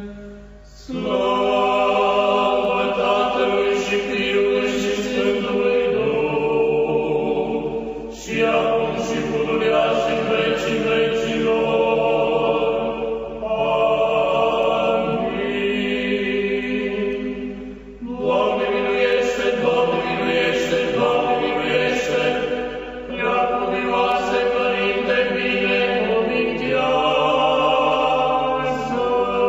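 A choir singing Orthodox liturgical chant in long held phrases, breaking briefly about a second, eight seconds and eighteen seconds in.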